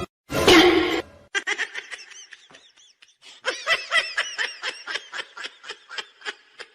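A loud short cry just under a second in, then a person laughing in a long run of quick, high-pitched bursts, about five a second.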